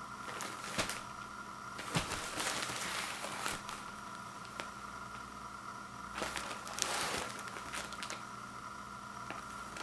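Plastic wrap on a multi-pack of toilet paper rolls crinkling as the package is handled and turned over, in three short bouts, over a faint steady hum.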